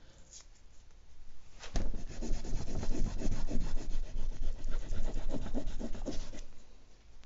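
An oil pastel stick rubbed in rapid repeated strokes against paper on a board, starting about two seconds in and stopping near the end. The pastel is held on its side with its paper wrapper still on, so it barely marks.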